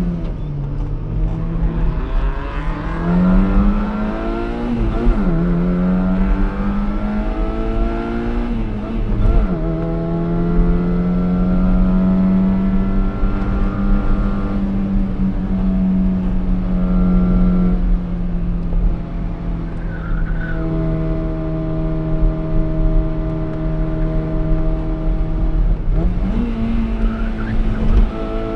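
Fiat X1/9's four-cylinder engine heard from inside the cabin, revving up and dropping back sharply a few times in the first ten seconds, then holding steady revs for a long stretch before climbing again near the end.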